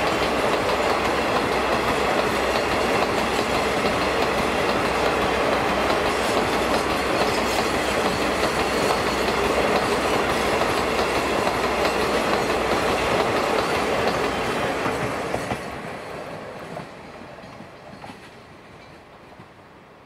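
Long freight train of hopper wagons rolling past, the wheels on the rails making a loud, dense, steady noise that fades away from about 15 seconds in as the train moves off.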